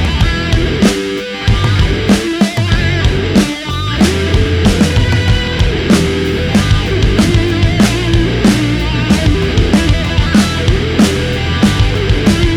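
Rock music with drums and guitar and a steady beat.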